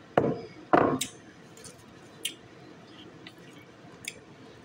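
Two short, loud squishy handling noises from plastic spoon, glass bowl and plate with saucy chicken, then a few faint light clicks.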